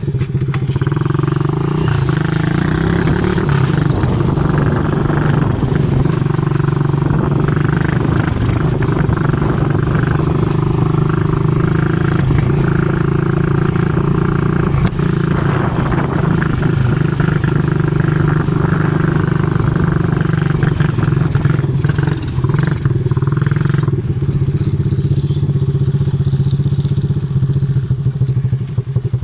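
ATV engine running at a steady speed, its pitch holding even throughout.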